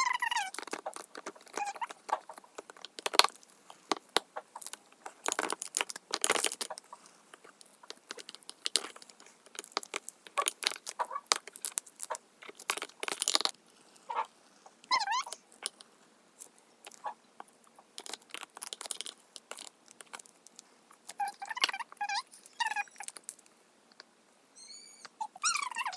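Crushed Orbeez gel beads being squeezed from a soft plastic icing bag through its nozzle: wet crackling and squelching in irregular spurts, with a few short squeaky squelches.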